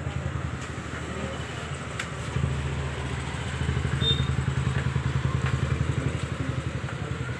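A motorcycle engine idling close by, a steady low pulsing that grows louder a couple of seconds in.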